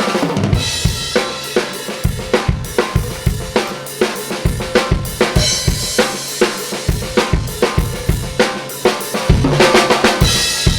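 Drum kit heard through a single mono room microphone (a U47 into a 1073 preamp), playing a steady beat of kick, snare and cymbals, heavily squashed by the Acme Audio Opticom XLA-3 optical compressor plugin on its normal setting. A busier, louder stretch with cymbal wash comes near the end.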